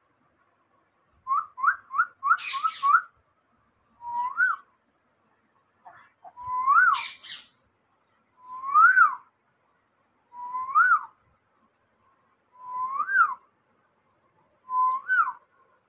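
Rose-ringed parakeet whistling. It gives a quick run of five short rising whistles, then single longer whistles that rise and fall, about one every two seconds. Two short harsh bursts come through the early whistles.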